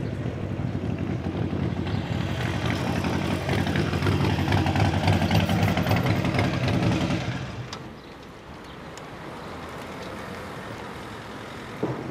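Motorcycle engine running, a low steady drone, until it drops away about eight seconds in, leaving a quieter background.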